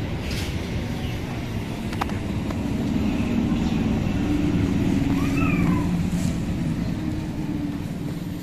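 BEML-built stainless-steel EMU local train running along the platform: a low rumble of wheels and running gear with a steady hum, growing louder to a peak around the middle. A short high rising-and-falling cry sounds once about five seconds in.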